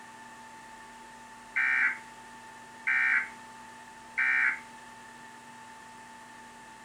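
Emergency Alert System end-of-message signal: three short, identical bursts of screeching SAME digital data tones, about a second and a quarter apart, marking the end of the alert. A faint steady whine runs underneath.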